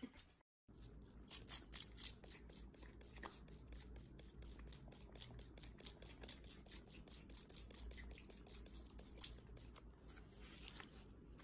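Faint, rapid clicking, about five clicks a second, from a small black hand-held object worked against a cat's head.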